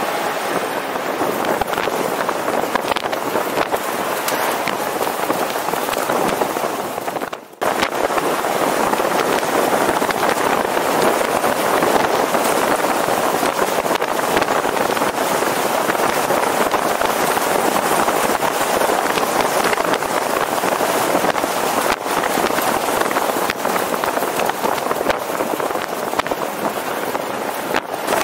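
Steady rushing wind and road noise of a moving car, picked up by a camera mounted on the outside of the car, with a brief break about seven seconds in.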